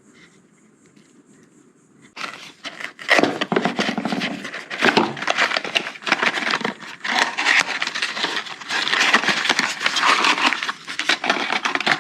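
Packaging being handled and unwrapped close to the microphone: dense crinkling and crackling that starts suddenly about two seconds in and carries on.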